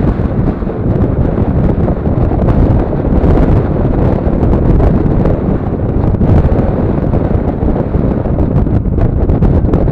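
Wind buffeting the microphone at the side of a moving vehicle, a loud, steady low rumble mixed with the noise of the vehicle driving on the road.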